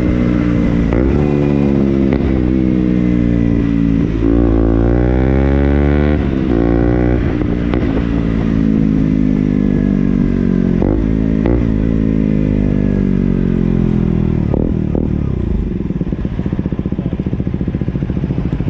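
KTM Duke motorcycle engine and exhaust running hard, the pitch climbing steeply once and otherwise sinking, with several short sharp breaks; near the end it settles to a lower, evenly pulsing beat.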